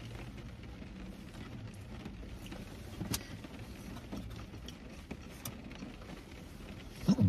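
Quiet car cabin with a low steady hum, and a few faint scattered clicks and crinkles from eating and handling food packaging. A short low vocal sound comes right at the end.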